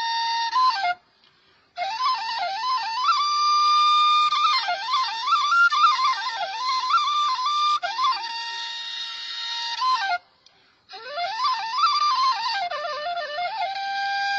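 Background music: a solo flute-like melody of quick warbling runs and held notes, breaking off twice for under a second.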